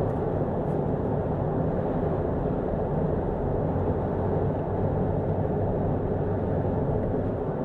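Steady cabin noise of a vehicle cruising on an expressway: tyre and engine drone, mostly low in pitch, even throughout with no distinct events.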